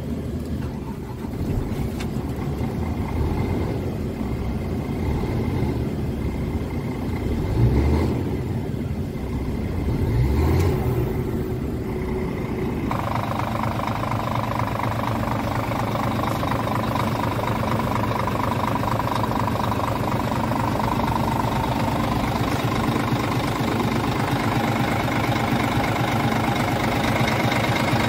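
Scania R 410 13-litre six-cylinder diesel engine idling, revved briefly twice about eight and ten seconds in. Past the halfway point it is heard close up at the open front of the cab, where it sounds brighter.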